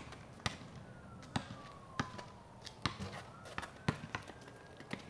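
A basketball bouncing, with sharp thuds at an uneven pace about once or twice a second, while a siren wails slowly in the distance.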